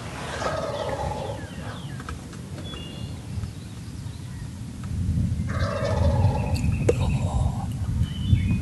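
Wild turkey gobblers gobbling, twice: once about half a second in and again about five and a half seconds in. A low rumble sits under the second half.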